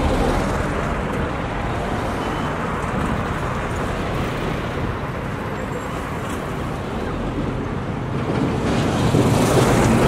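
Road traffic passing: the steady noise of lorries, minibuses and cars driving by. It grows louder near the end as a bus and a lorry come close past the microphone.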